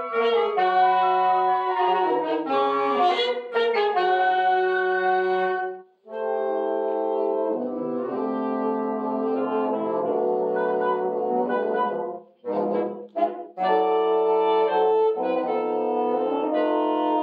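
Wind quintet with alto saxophone (flute, oboe, clarinet, French horn, bassoon and alto sax) playing held chords and moving lines. The music breaks off briefly about six seconds in, and there are a few short, detached chords around twelve to thirteen seconds before the sustained playing returns.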